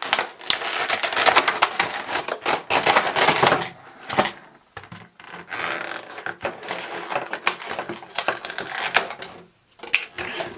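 A cardboard collection box being opened and its contents handled: a rapid run of clicks, rustles and scrapes of cardboard and plastic packaging. The sounds are busiest for about the first four seconds, then come more sparsely.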